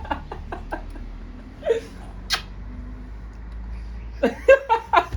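Short wordless vocal sounds from a baby being spoon-fed: bursts of babbling and squeals in the first second and again near the end, with a single sharp click a little over two seconds in.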